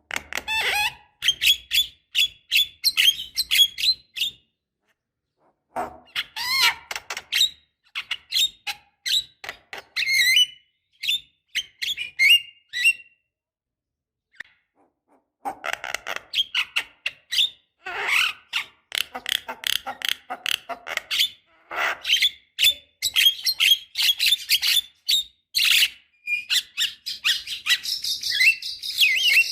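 Javan myna (jalak kebo) singing in rapid strings of short, sharp, chattering notes. It sings in phrases, with pauses of a second or two at about four seconds in and again at about fourteen seconds in, then sings on without a break.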